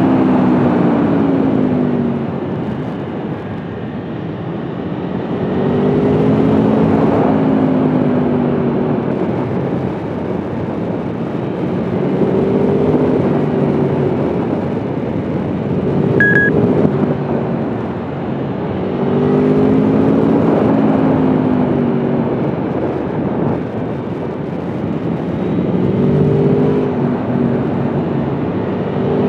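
Aprilia Tuono V4 1100's V4 engine under way, repeatedly revving up and easing back off, its pitch climbing and falling every several seconds. Steady wind rush on the microphone runs underneath.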